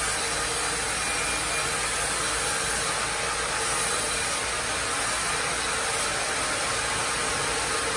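Carriage sawmill running: the headrig and log carriage make a steady, even machinery noise with a faint constant hum, with no separate knocks or impacts.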